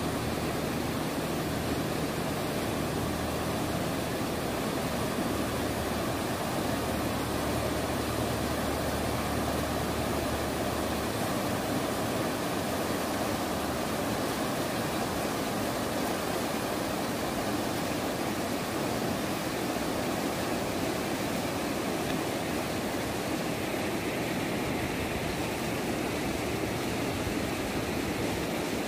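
Swollen, muddy flood river rushing steadily over its rapids: a continuous, even roar of fast water.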